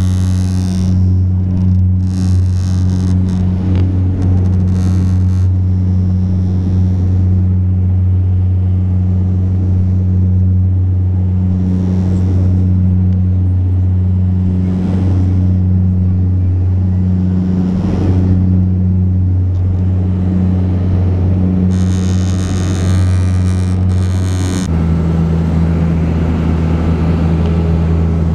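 Turboprop airliner's engine and propeller drone heard inside the cabin during takeoff: a loud, steady low hum with a wavering overtone and stretches of rushing hiss. About 25 s in the drone drops to a lower, steadier pitch as the propellers settle at climb power.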